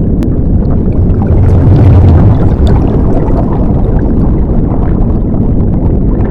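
Loud rushing, rumbling noise with scattered crackles, an edited-in intro sound effect that starts abruptly out of silence and runs steadily without words or music.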